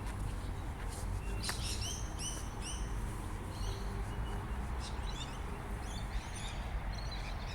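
Small birds chirping: a quick run of repeated high chirps about a second and a half in, then scattered fainter chirps, over a steady low rumble.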